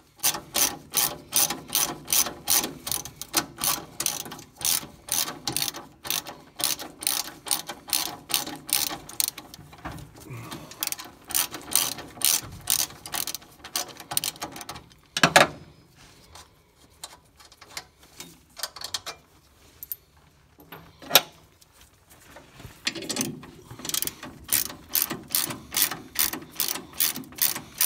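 Hand ratchet wrench clicking in quick runs as it turns a nut at the battery. The clicking stops for several seconds in the middle, broken by two single sharp clicks, and starts again near the end.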